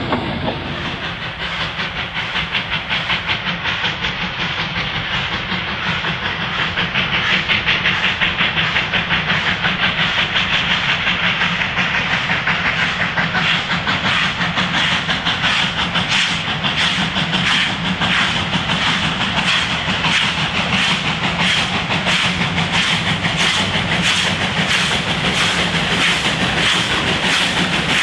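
Exhaust beats of Victorian Railways J-class steam locomotives, J541 leading, working hard as the train approaches. The quick, even chuffing becomes louder and more distinct after the first few seconds. Steam hisses from the cylinder drain cocks.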